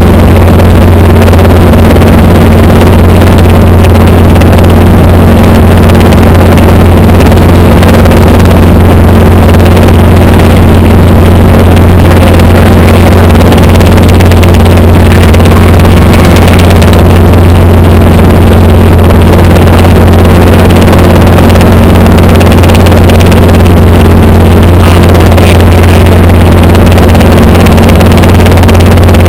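Light helicopter in flight, heard from inside the cockpit: the engine and rotors give a loud, steady drone with a constant low hum that holds its pitch.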